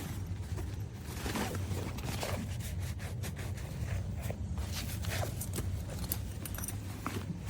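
Irregular rustling and scraping handling noise, with zipper-like rasps, over a steady low hum.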